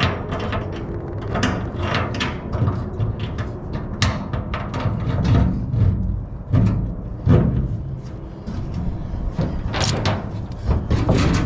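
Irregular knocks, bangs and scrapes from handling the fuel transfer tank and its fittings on the pickup's bed, over a steady low rumble.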